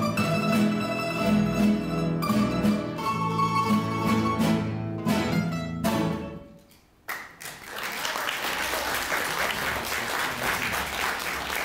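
A plucked-string ensemble of domras and guitars plays its closing bars and ends on a few sharp strummed chords about six seconds in. After a brief pause, audience applause starts and keeps going.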